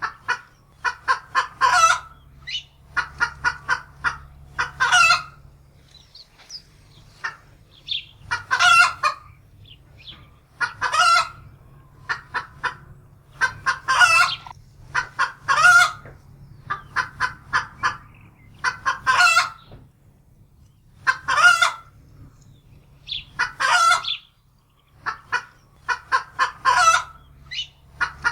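Domestic hen cackling in alarm, frightened: runs of quick, sharp clucks, many ending in a long, drawn-out squawk, repeating again and again.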